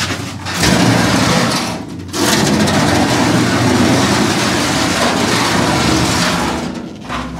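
Large one-piece stamped-steel floor pan being wrestled around by hand, its thin sheet metal scraping, flexing and rumbling loudly. There is a short lull about two seconds in.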